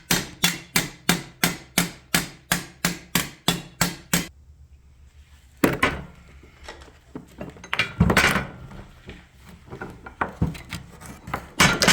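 Hammer blows on a sheet-steel repair panel being bent to a sharp edge over an anvil, about three strikes a second, stopping about four seconds in. After that come a single blow and scattered clanks of metal being handled.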